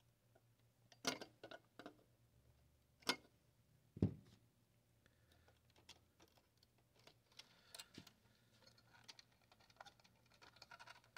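Quiet, scattered clicks and taps of hand tools, pliers among them, on a circuit board as a stubborn capacitor is worked loose, with a few louder clicks about one, three and four seconds in.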